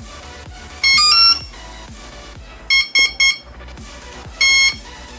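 Brushless motor speed controller powering up and arming, its tones played through the motor: three stepped rising tones, then three short beeps, then one longer beep.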